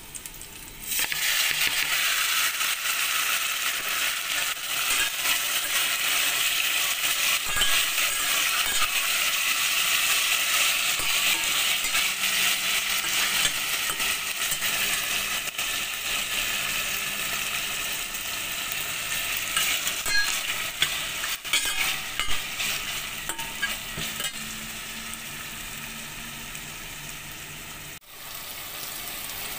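Beef pieces hit hot oil with garlic in a stainless steel pot and sizzle loudly as they fry, stirred with a metal slotted spatula. The sizzle starts abruptly about a second in and eases off gradually toward the end, with a few sharp clicks of the spatula against the pot partway through.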